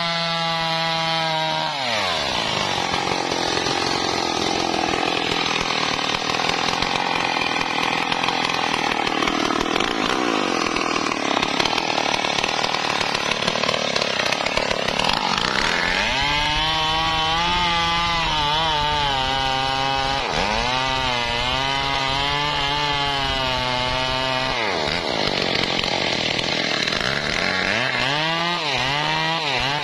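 Stihl two-stroke chainsaw at full throttle, sawing into the base of a teak trunk. Its engine note is steady at first, gives way to a long noisy stretch of cutting, and later wavers up and down as the chain bites and frees in the cut.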